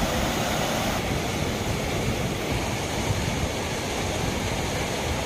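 Steady, even rushing noise of water, with no break or change in level.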